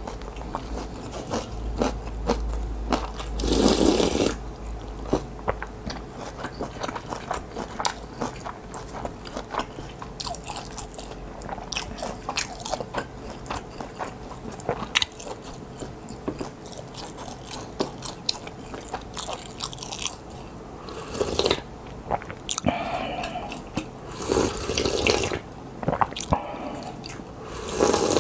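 Close-miked eating sounds: chewing and mouth clicks of ramen and kimbap, with a few louder slurps. Near the end the ramen broth is slurped straight from the bowl.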